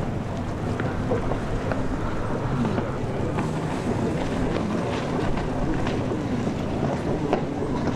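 Racing jet ski engines out on the sea, heard under wind buffeting the microphone, with an engine note that rises and falls in the middle.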